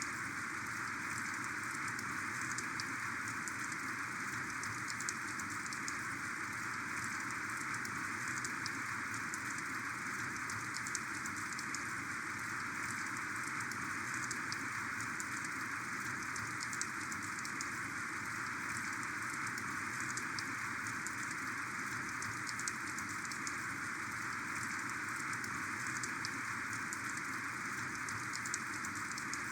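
Heavy rain falling steadily, a dense even hiss with many individual drops ticking through it.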